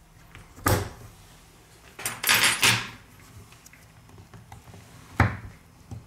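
Handling sounds of phone-opening tools, a suction cup and a thin metal pry tool against the phone's glass back and the table: a knock about a second in, a quick run of clicks and scrapes around two to three seconds, and a sharp click near the end.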